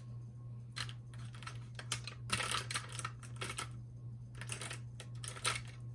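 Paper dollar bills being handled and laid down on a tabletop: a scattered run of small crisp clicks and rustles, thickest about two to four seconds in, over a steady low hum.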